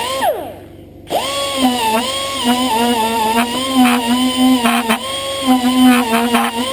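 Air tool spinning a steel wire brush against an engine valve to scour off built-up carbon grime. Its high whine sags and wavers in pitch as the brush bites, with scratchy rasping. About a quarter second in the tool is let off and winds down, then it is run back up to speed about a second in.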